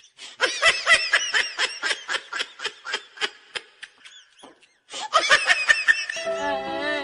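Someone laughing in a long run of quick, short bursts, breaking off briefly about four and a half seconds in and then starting again. Music with steady held notes comes in near the end.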